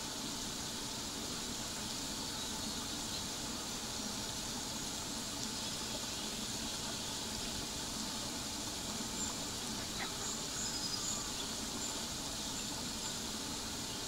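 Steady high-pitched insect drone in a garden, with a few short high chirps about two thirds of the way through.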